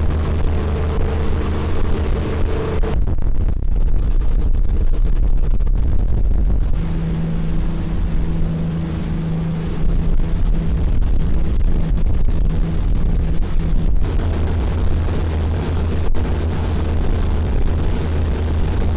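Engines of a military riverine boat running at high speed: a steady low drone with the rush of water and spray over it. The drone's tone shifts abruptly about three and seven seconds in.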